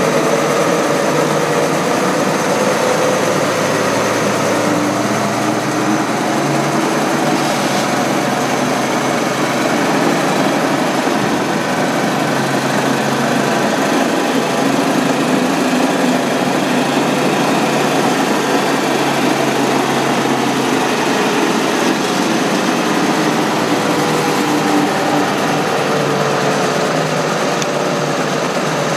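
New Holland T7.200 tractor's diesel engine running steadily while it drives a Kuhn HR 3002 power harrow through the PTO, the harrow's tine rotors spinning on a concrete yard rather than working soil.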